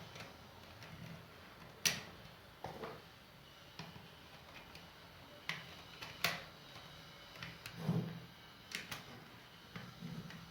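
Scattered sharp clicks and light knocks of small parts being handled and fitted, about half a dozen over the stretch, as a hair dryer's two-speed switch with a displaced contact is worked on.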